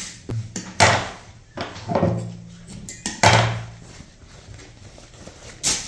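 Cloth being handled at a sewing machine: a handful of sharp rustles and knocks, the loudest about a second in, about three seconds in and near the end.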